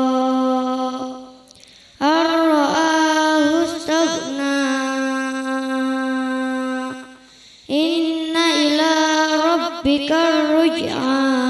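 A girl reciting the Qur'an in a melodic chanted style (tilawah), with long held notes and ornamented turns of pitch. She recites three phrases, with short breath pauses between them.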